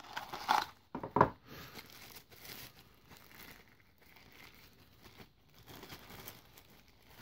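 Thin translucent plastic wrapping crinkling as hands unwrap a smartwatch from it: two louder crinkles in the first second and a half, then softer, irregular rustling.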